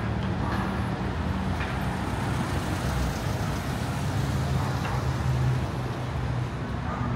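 City street traffic: motor vehicle engines running with a steady low hum under a constant wash of road noise.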